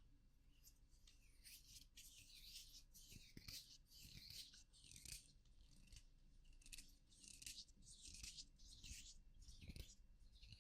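ASMR rubbing sounds close to the microphone: a faint series of short, soft scratchy strokes, roughly one or two a second with a brief pause midway.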